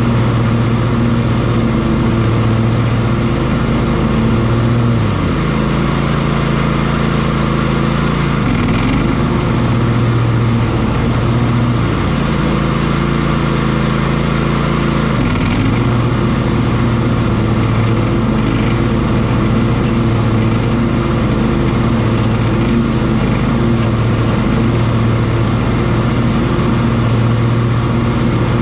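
Cub Cadet XT1 ST54 riding lawn mower running steadily while mowing thick tall grass and weeds. Its engine pitch sags briefly and recovers about four times in the first half.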